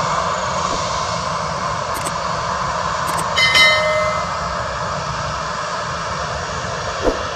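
Airbus A320-family airliner's jet engines running at high power during its takeoff roll: a steady, loud rush of engine noise. About halfway through, a short chime with a click rises briefly above it.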